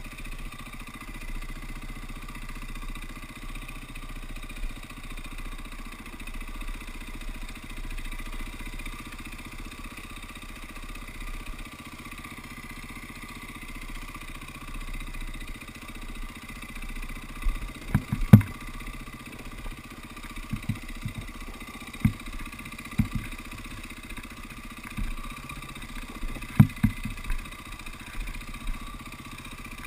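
KTM dirt bike engine running steadily at low revs, with no rising or falling rev. Past the middle come a string of sharp knocks and clatters, the loudest a little after halfway, as the bike jolts over rocks.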